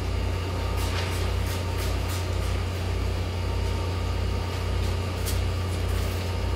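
Steady low hum that dips and swells in level about every half second, with faint light ticks over it.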